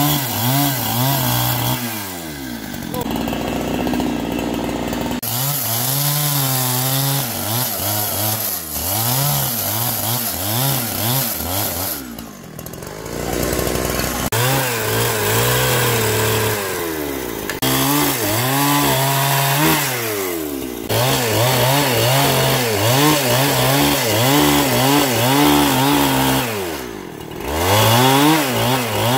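Two-stroke petrol chainsaw cutting logs for firewood. The engine revs up and drops back again and again as the chain bites into the wood, and falls back a few times to a lower idle between cuts.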